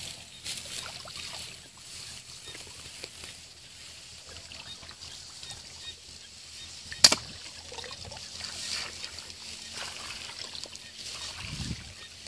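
Water sloshing and trickling, over a faint low steady hum that stops near the end. One sharp knock about seven seconds in is the loudest sound.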